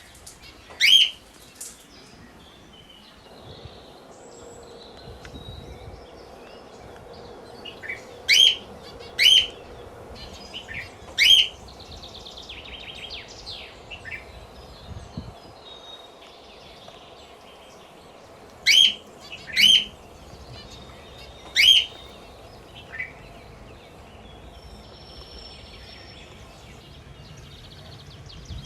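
Pet parrots calling: about seven loud, short, shrill calls, some in quick pairs, over quieter chirping and chattering.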